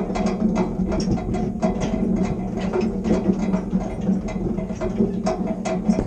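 Hand-cranked winch of a small cable ferry being wound, pulling the pontoon across the canal. It gives a steady gear drone with a continuous clicking of the ratchet.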